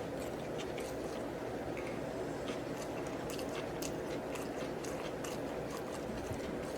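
A person chewing food close to the microphone, with scattered short wet mouth clicks and smacks.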